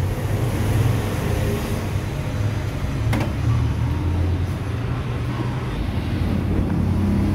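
Steady low engine rumble of a vehicle idling, with one sharp click about three seconds in.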